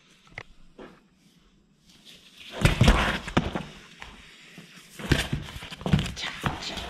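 Cat's paws scrabbling, scratching and thumping on a cardboard box while it plays, in two bursts: one about two and a half seconds in and another about five seconds in.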